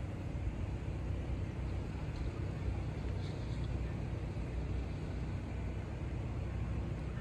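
Steady low engine rumble with an even hiss over it, at a railroad grade crossing.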